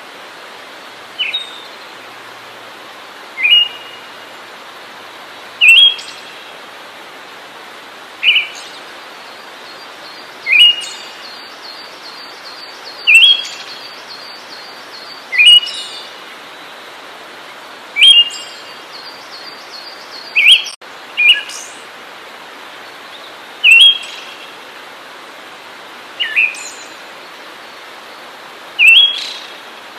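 A songbird giving a short, sharp, quickly rising call, repeated evenly about every two and a half seconds over a steady background hiss.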